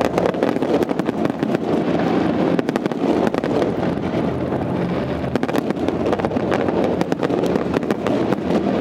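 Fireworks display going off: many sharp cracks and pops in quick, irregular succession over a continuous rumble.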